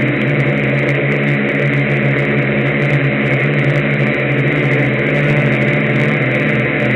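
HLY6 Y6 multicopter's electric motors and propellers running in flight, heard close up from the camera on board: a loud, steady hum of several even pitches.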